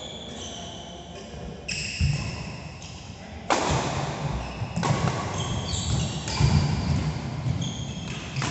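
Badminton rally: racket strings striking the shuttlecock in sharp knocks, mixed with short high squeaks of court shoes on the synthetic floor and the thud of feet landing.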